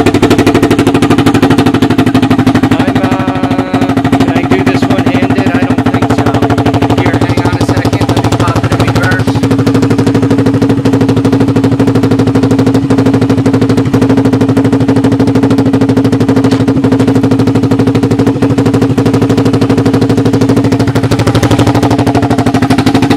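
1986 Honda TRX200SX air-cooled single-cylinder four-stroke engine idling steadily in neutral, with a rapid, even chuff through an empty homemade muffler.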